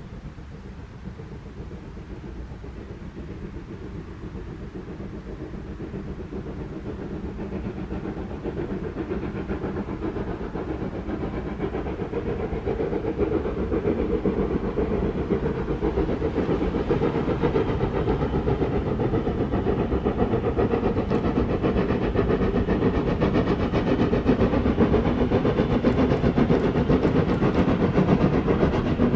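Steam locomotive hauling a passenger train, its exhaust getting steadily louder as it approaches.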